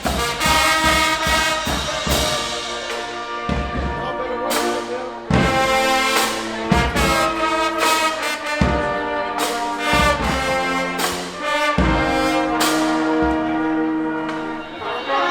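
High school marching band playing: the brass section holds loud chords, with heavy drum hits landing several times.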